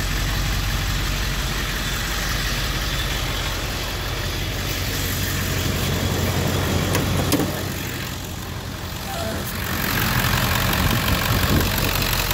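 Ford 7.3 Power Stroke V8 turbo diesel, fitted with a big Garrett turbocharger, idling steadily.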